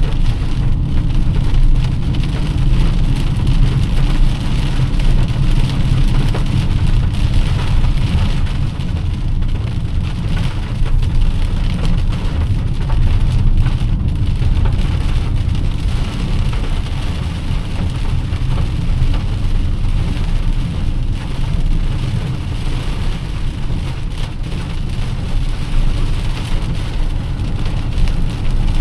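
Heavy rain pattering steadily on a moving car, over a continuous low rumble of the engine and tyres on the road.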